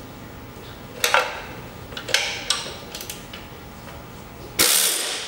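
A few sharp metal clicks of a socket being fitted onto a bolt, then a short hissing burst of a pneumatic air tool near the end, run against a tight, old bolt on a 1948 Harley-Davidson chassis.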